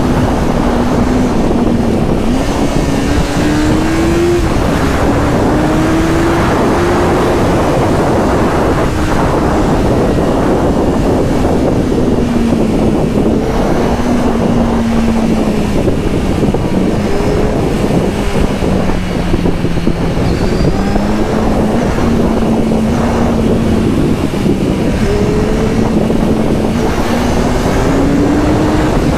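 Kawasaki Z1000SX's inline-four engine running at highway speed, its note drifting slowly up and down with the throttle. A steady rush of wind and road noise runs under it.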